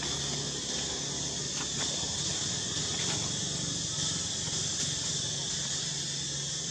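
Steady outdoor insect chorus: an even, high hiss with a low steady hum beneath it and a few faint clicks.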